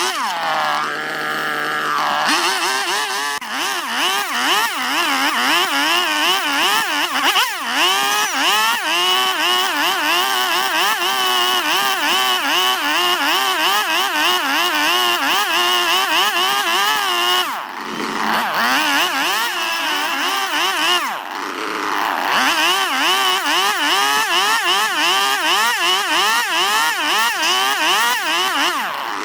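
Two-stroke chainsaw carving into a log of Chinese toon wood, its engine speed rising and falling constantly under the cut. It drops to idle briefly near the start and eases off twice about two-thirds of the way through.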